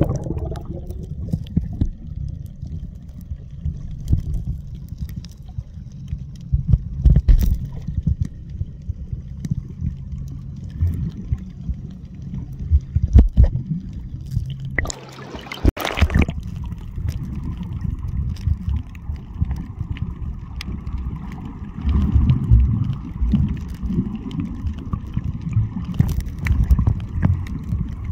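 Muffled underwater sound from a submerged camera: a steady low rumble of water moving against the housing, with scattered small clicks and knocks. About fifteen seconds in there is a brief, louder rush of water.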